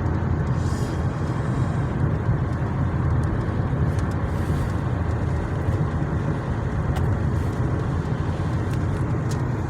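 Steady road and engine noise of a moving car heard from inside the cabin, with a few faint clicks.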